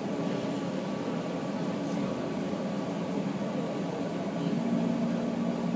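Steady cabin noise inside a 185 series electric train carriage, with a low hum that sets in about four and a half seconds in.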